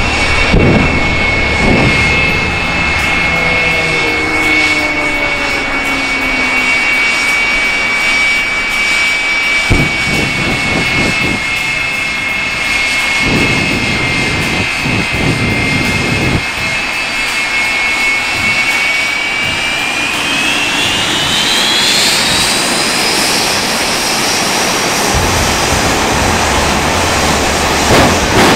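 Jet engines of a jet-powered fire truck running with a steady high whine, the pitch climbing sharply about twenty seconds in as the engines spool up during warm-up.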